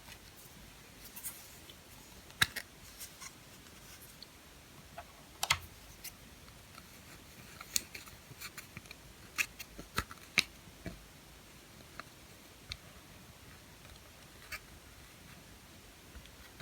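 Slime being worked by hand with eyeshadow mixed in: scattered small sticky clicks and pops at irregular intervals, thickest in the middle, over a faint hiss.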